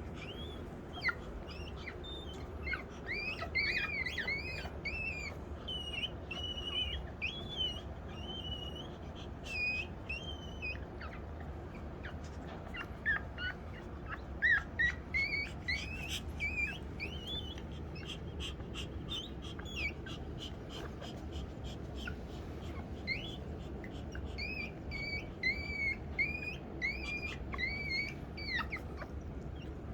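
A litter of six-day-old newborn pets squeaking and crying in short, high-pitched calls that bend up and down, in runs with brief lulls, over a faint low hum.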